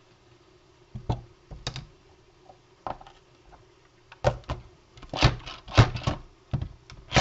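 Hard plastic knocks and clacks from a manual pump-handle food processor as its lid is fitted onto the onion-filled bowl: a few scattered clicks at first, then a quick run of louder knocks over the last three seconds.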